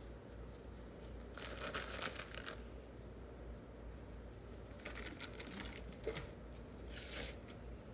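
Faint crinkling of a packet being handled, in three short spells.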